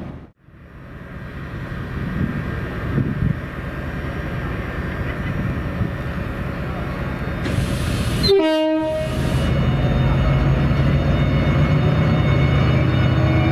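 Railway locomotives at a station: a train rumbling past, then a brief horn toot just after 8 s in. After that a diesel locomotive engine runs with a steady low drone.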